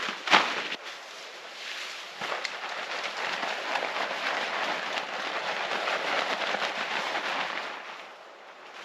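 A sharp knock just after the start, then several seconds of dense, crisp rustling and crackling as gear is handled and packed, fading near the end.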